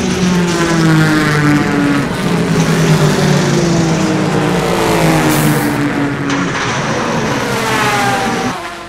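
Race cars passing at speed one after another, each engine note falling in pitch as it goes by, with a short sharp hiss about five seconds in.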